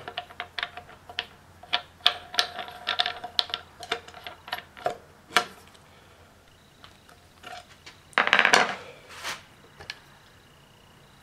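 Metal clinks and taps of a screwdriver and grinder parts as the grinding wheel is swapped on a tool and cutter grinder, some clinks ringing briefly. A louder scrape comes about eight seconds in.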